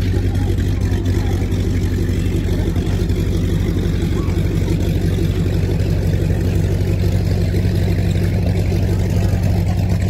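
A steady low-pitched engine hum that holds the same pitch and level throughout.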